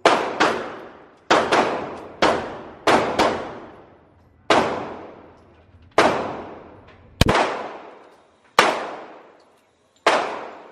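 Handgun shots in an indoor shooting range: about a dozen sharp bangs at an uneven pace, some in quick pairs, each followed by a long echoing tail.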